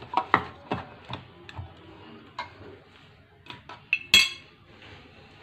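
Hands tossing cut potato fingers in a bowl with gram flour and spices: irregular light clicks and knocks of the pieces and fingers against the bowl, with one sharper click about four seconds in.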